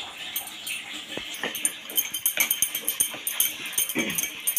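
Dough being taken from a steel bowl and rolled out with a wooden rolling pin on the kitchen countertop: scattered clicks and knocks with a light metallic jingling. A short falling whine comes about four seconds in.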